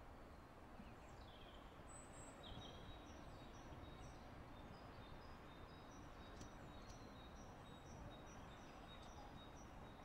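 Faint outdoor ambience: small birds chirping in quick, repeated short notes over a steady low rush of wind and background noise.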